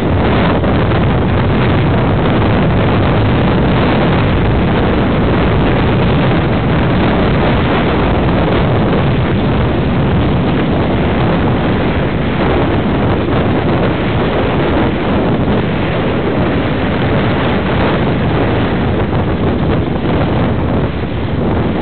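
Wind blasting across a handheld camera's microphone while skiing downhill in a blizzard: a loud, steady rushing noise.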